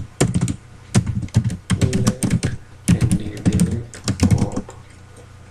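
Typing on a computer keyboard: quick runs of keystroke clicks with short gaps, stopping shortly before the end.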